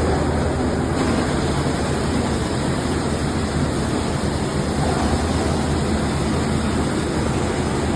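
Plastic film and raffia cutting and dry-washing machine running steadily: a constant motor hum under an even rushing noise.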